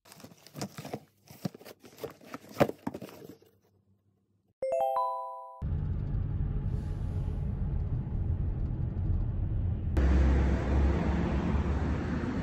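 A run of crackling clicks for about three seconds, then a short chime that fades away. After it comes the steady low rumble of a car driving, which turns louder and rougher from about ten seconds in.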